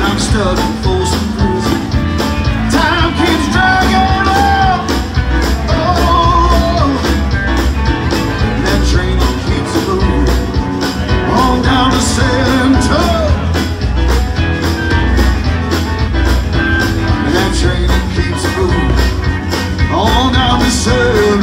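Live rock band playing amplified electric guitars and bass over a steady drum beat.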